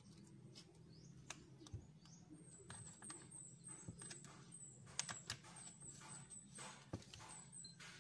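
Quiet handling of a plastic juice drink pouch on a wooden desk: scattered small clicks and taps, the sharpest about five and seven seconds in. Faint, rapid high chirping repeats in the background through most of it.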